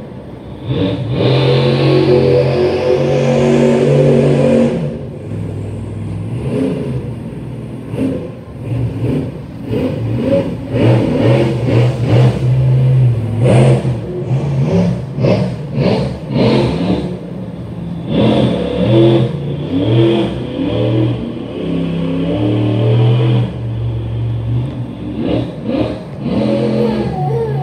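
Monster truck engine revving hard in repeated surges, held at high revs for a few seconds at a time and then backed off. During the first surge a high whine climbs in pitch.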